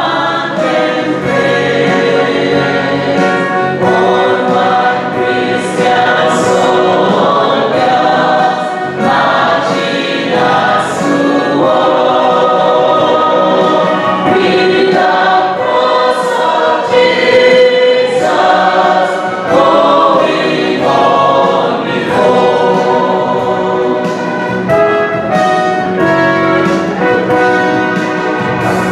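A church choir singing a hymn, many voices together in continuous song.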